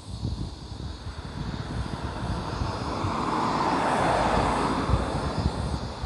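Aircraft passing overhead: a steady engine drone that swells to its loudest about four seconds in, then fades, with gusts of wind on the microphone.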